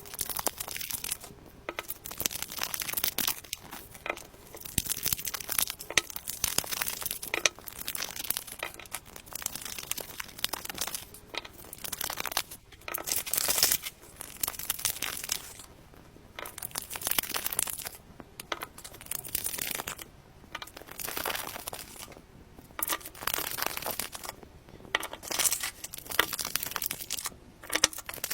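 Soap wrappers being torn open and crinkled, in bouts of crackling a second or two long with short pauses between them.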